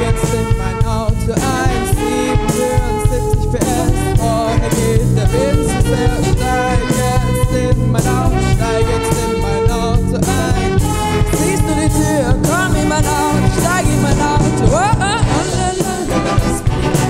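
School big band playing a song live, with female voices singing the melody over the band's brass, keyboard, guitar, bass and drums.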